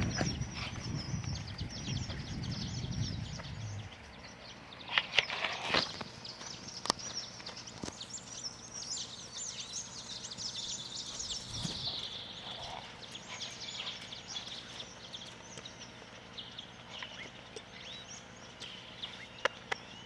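Horse cantering on a sand arena, its muffled hoofbeats fading out about four seconds in. Birds chirp throughout, and a few sharp knocks come about five to seven seconds in.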